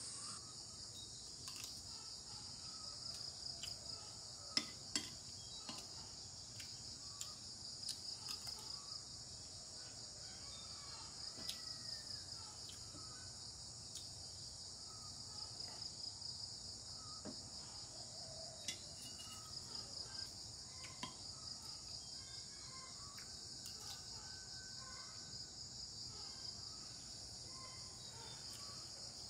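A steady chorus of insects chirring, with a fast pulsing texture throughout. Scattered short clinks of a metal spoon against a ceramic plate sound over it, the sharpest a little after four seconds in.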